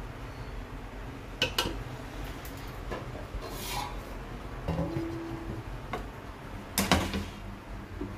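Steel cooking pot and plate knocked and scraped as cooked rice is tipped out of the pot: a few sharp clinks and knocks, the loudest about a second and a half in and near the end, with a brief scrape in between.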